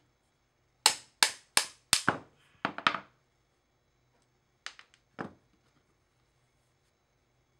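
Pliers working an old pin lift at a women's shoe heel tip, giving sharp clacks: four evenly spaced strikes, a quick cluster of smaller ones, then two more about a second and a half later.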